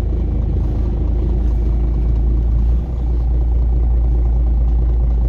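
Steady low rumble of a city public-transport vehicle in motion, heard from inside the passenger compartment.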